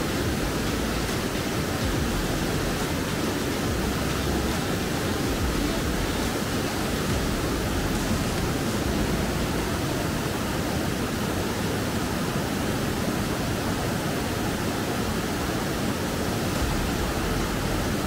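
Waterfall rushing close by: a steady, even roar of falling water.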